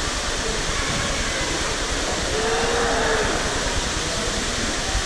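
Steady, echoing din of an indoor swimming-pool hall: water splashing and a crowd of bathers blurred into a wash of noise. About two and a half seconds in, a short held tone rises above it, falling slightly in pitch.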